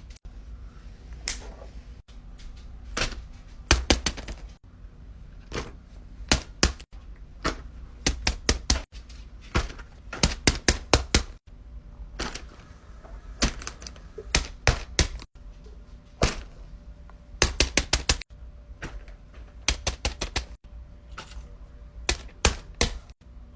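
Plastic fidget toys being handled and set down: a series of sharp clicks and taps, often in quick clusters of three to six, with several abrupt cuts.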